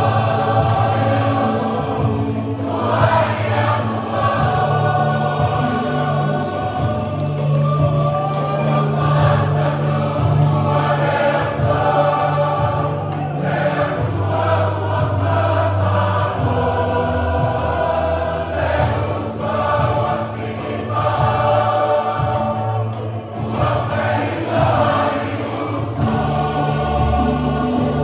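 Church choir singing a hymn, many voices together in long held chords over steady low notes.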